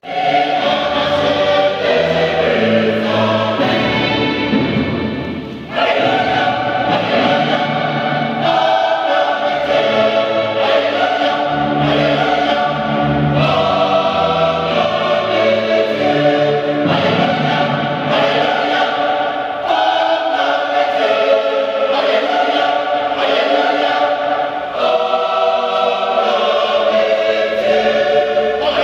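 Mixed church choir of men's and women's voices singing a gospel song together, with a short break about six seconds in.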